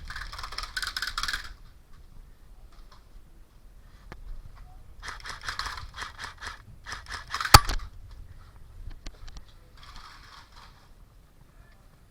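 Scraping and rustling in several short bursts, with one sharp crack about halfway through that is the loudest sound.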